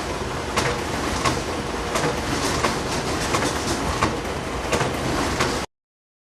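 Canon copy machine running, a steady mechanical whir with a sharp click repeating about every two-thirds of a second as it cycles. It cuts off suddenly near the end.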